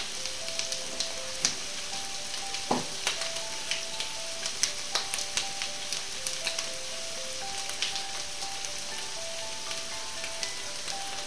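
Meat patties frying in hot oil in a pan: a steady sizzle with irregular crackles and pops. A faint melody of short notes plays underneath.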